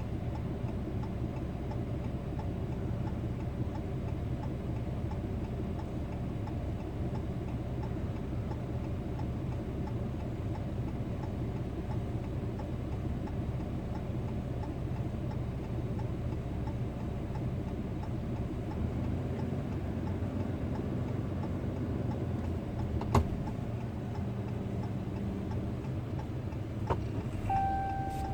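An engine running steadily at idle, with faint regular ticking over it. A single sharp click stands out about two-thirds of the way through, and a few short knocks and a brief steady tone come near the end.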